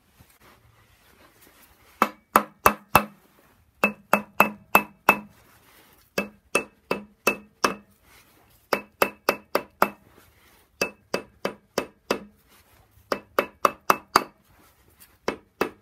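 A rubber mallet hammers the crankshaft pulley of a BMW N54 engine to knock it loose from the crank hub. The blows come in quick volleys of four to six, about three a second, with short pauses between volleys, and each strike has a slight metallic ring.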